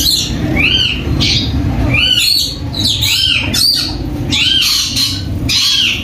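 Ringneck parakeets giving repeated harsh screeching calls, each rising and falling in pitch, about every half second, over a steady low background hum.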